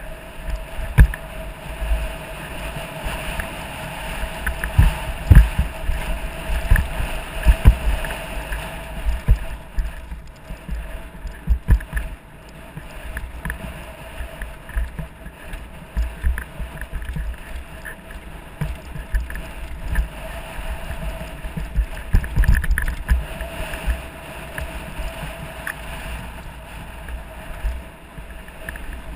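Mountain bike riding fast down a rocky dirt trail: a steady rumble of tyres on gravel and wind on the microphone, broken by irregular knocks, thumps and rattles as the bike hits rocks and bumps.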